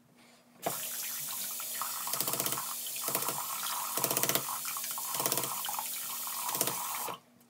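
Bathroom sink faucet turned on, water running hard into the basin for about six seconds while a shaving razor is rinsed under the stream, the splashing coming in short choppy spells as the razor is moved through it. The water cuts off suddenly when the tap is shut.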